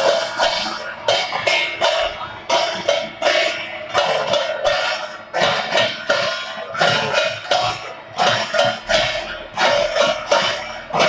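Loud live folk percussion music: drums and ringing cymbals beaten in a driving, uneven rhythm with strong accents about twice a second.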